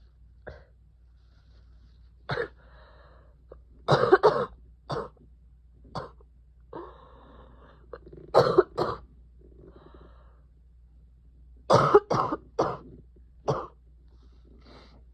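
A person with a lingering cold coughing in repeated short bouts, often two or three coughs close together, with fainter breaths drawn in between. The loudest cluster of coughs comes about four seconds in.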